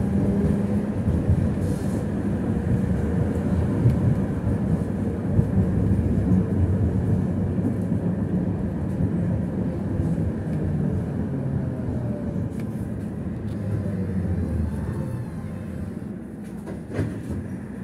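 A BKM 60102 tram heard from inside, rumbling along the track with a low motor hum. It slows and quietens toward the end as it pulls into a stop, with a brief faint whine just before it settles and a single click near the end.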